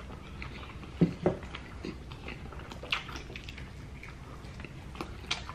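Close-miked eating of crunchy breaded fried chicken legs: biting and chewing, with two sharp crunches about a second in and softer ones later.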